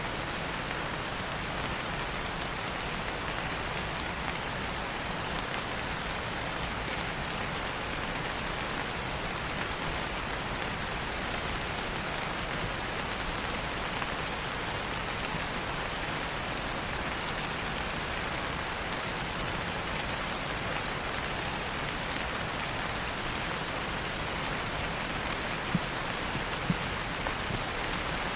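Steady rain falling, an even patter with a few small sharp ticks near the end.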